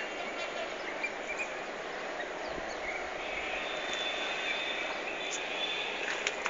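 Steady outdoor background noise with a few faint, short high chirps.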